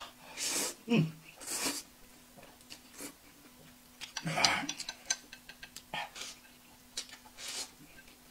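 Eating sounds at a meal of spicy noodles and roast chicken: a few short breathy slurps or sniffs and a brief murmur, then light clicks of chopsticks against bowls.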